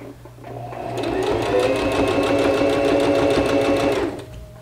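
Electric sewing machine running steadily, stitching a gathered sleeve into a bodice with an even, rapid rhythm; it starts about half a second in, builds to speed and stops just after four seconds.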